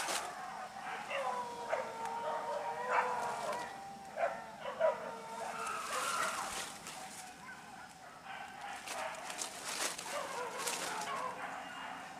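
Hunting dogs barking and yelping during a wild boar hunt, with one long drawn-out cry held from about a second in to about four seconds.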